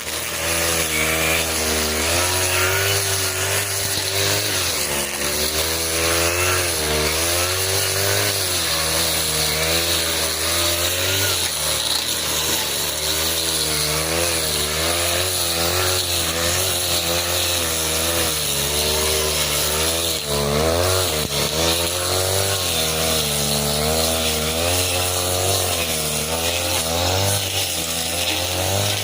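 40cc two-stroke brush cutter running hard, its engine pitch dipping and recovering again and again as the 40 cm blade bites into thick grass.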